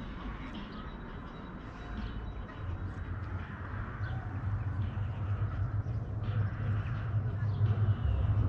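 Outdoor ambience with faint bird chirps over a low rumble that grows gradually louder from a few seconds in.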